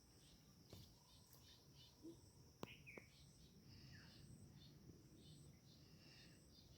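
Near silence, with a faint steady high insect drone and scattered faint chirps, and one brief click about two and a half seconds in.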